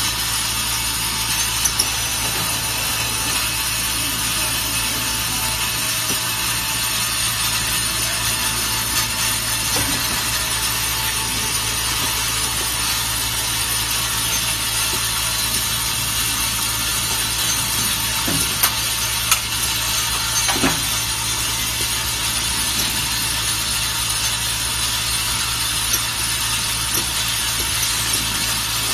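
Automated rearview-mirror assembly machine running amid steady factory machinery noise, with a few sharp mechanical clicks and knocks scattered through. Two of the clicks, about two-thirds of the way in, stand out as the loudest.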